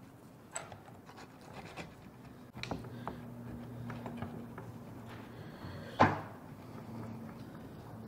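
Faint scratching and small clicks of a metal-tipped tool worked over oil pastel on a canvas board, with one sharp knock about six seconds in. A low steady hum comes in under it about three seconds in.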